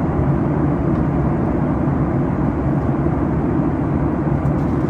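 Steady cabin noise of a Boeing 737-9 MAX in flight, heard from inside the cabin: an even rush of airflow and engine drone, mostly a deep rumble.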